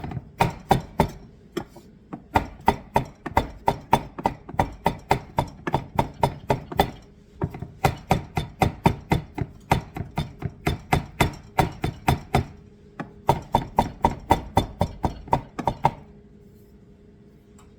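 Chef's knife mincing fresh mint on a cutting board: rapid, even knocks of the blade on the board at about four or five a second, in runs with brief pauses. The chopping stops a couple of seconds before the end.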